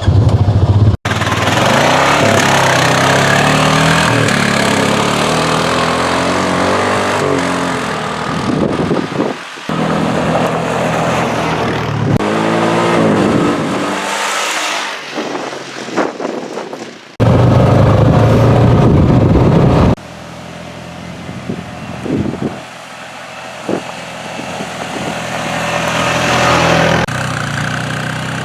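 Honda Pioneer 500 side-by-side's engine running and revving, in several clips cut together, so that the sound changes abruptly about a second in, around nine and a half seconds, at about seventeen and at about twenty seconds.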